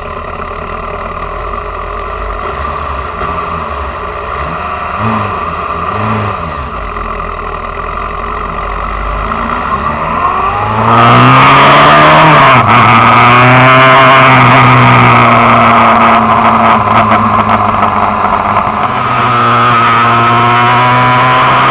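Motorcycle engine heard from an onboard camera. For the first half it runs steadily at low speed, with two short throttle blips. About halfway through it gets much louder and revs up hard through the gears, with a brief break at a gear change and a rush of wind noise, then settles to a steady high-speed run near the end.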